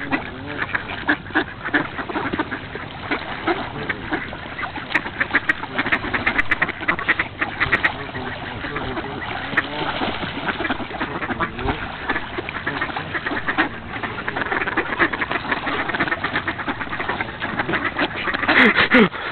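A large flock of mallard ducks quacking over one another without a break while crowding for bread, a dense feeding chorus. A louder burst of calls comes near the end.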